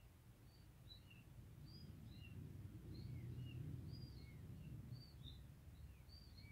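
Faint chirping of small birds in the background, short high chirps about three a second, over a low rumble that grows louder in the middle.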